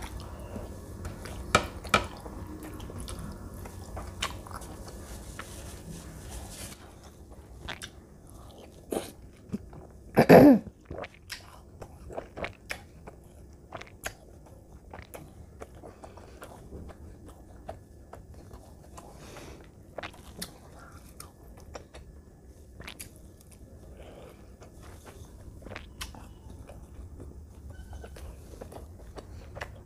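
Close-miked chewing and mouth sounds of someone eating by hand, with many small sharp clicks of the mouth and food. About ten seconds in there is one brief, much louder sound.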